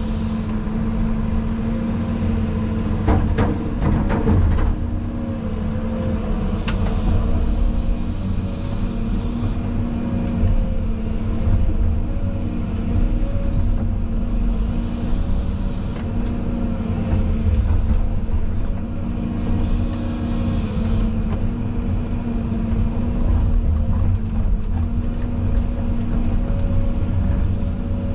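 Excavator engine and hydraulics running steadily, heard from inside the cab, with a held hum under the drone. A cluster of knocks comes about three to four seconds in, and a single click a little later.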